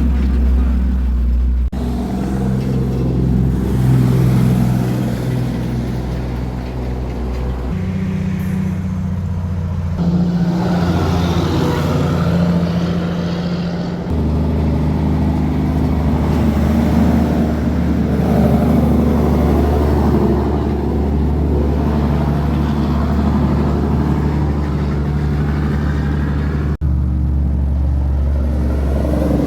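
Road traffic: truck and car engines running close by, a steady low hum. The sound changes abruptly several times as the footage is cut between shots.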